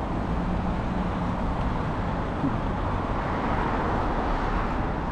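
Steady rumble of a moving car's road and engine noise, with no sharp events.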